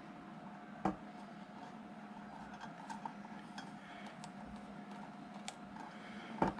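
Small clicks and light metallic clinks from handling a ceiling fan light kit's fuse holder as a new glass cartridge fuse is fitted, with a sharper click about a second in and another near the end. A faint steady hum runs underneath.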